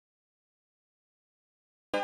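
Silence, then music with guitar-like plucked tones and a strong bass starts abruptly right at the end.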